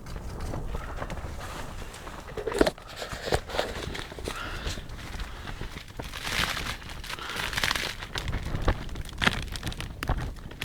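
Rustling and crunching handling noises with several sharp knocks.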